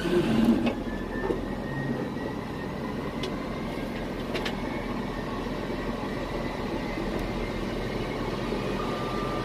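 Boeing 787-9 Dreamliner's jet engines running at idle: a steady rumble and hiss with a faint high whine, and a few light clicks.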